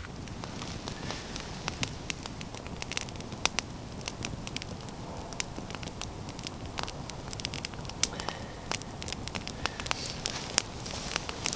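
Small campfire of twigs and sticks burning with a steady crackle and frequent sharp pops, a few of them much louder than the rest.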